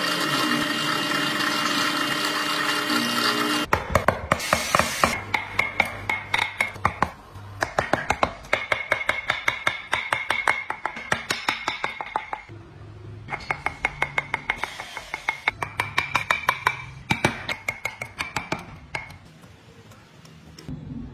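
A drill press runs and bores into a small wooden grille piece. After about three and a half seconds it gives way to rapid, sharp tapping on a chisel cutting the wood, several strikes a second, in runs of a few seconds with short pauses.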